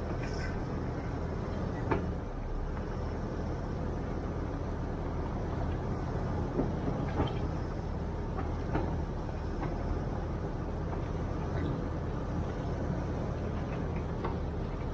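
Vehicle engine running at a steady low idle, with scattered light clicks and knocks.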